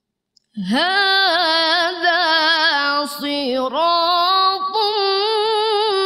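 A woman's solo voice in melodic Quran recitation (tarannum), chanting 'hādhā ṣirāṭun mustaqīm'. It begins about half a second in with long held notes decorated by rapid wavering turns, and breaks off briefly near the middle before going on.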